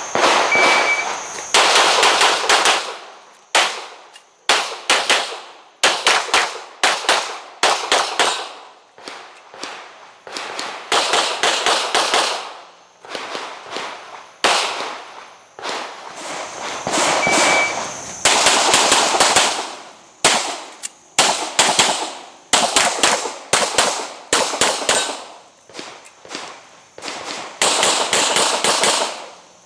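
Pistol gunfire on a practical-shooting stage: rapid strings of shots with short pauses between them, each string trailing off in echo.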